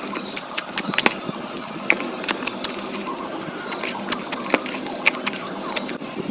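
Slime being squeezed and stretched by hand, giving irregular sharp sticky clicks and pops, several a second, over a steady hiss.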